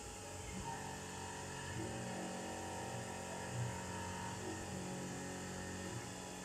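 Steady low electrical hum with several steady tones, and a few faint soft bumps from handling, one a little past halfway.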